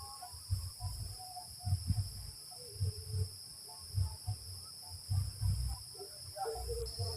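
Steady high-pitched drone of insects, with irregular low rumbling gusts of wind buffeting the microphone.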